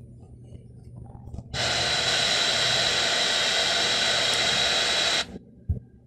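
Hyundai Mobis HB20 factory car radio (model AM1001JDG) switched on to FM and playing steady static hiss through its speakers, tuned to 89.5 MHz with no station, for about four seconds before cutting off suddenly.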